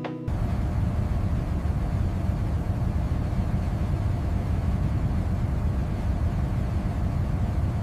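Turbofan jet engines running: a steady low rumble with a rushing hiss over it and a faint steady whine, starting abruptly just after the start.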